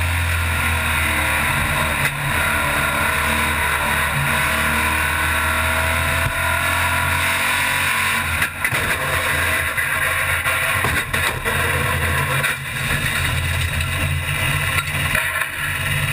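Race car engine heard from inside the cockpit, running steadily at speed under a haze of wind and road noise. Its note briefly dips a few times in the second half.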